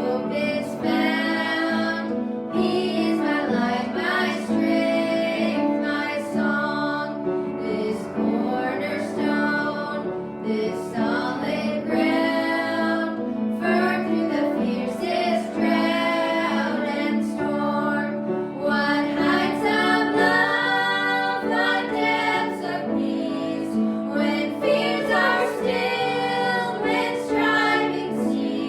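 A hymn sung by a female voice with instrumental accompaniment.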